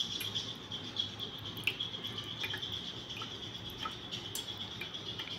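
Spoon pressing and scraping thick chicken gravy through a plastic mesh strainer into a steel pot. Faint wet scraping with a few light clicks, over a steady high-pitched hiss.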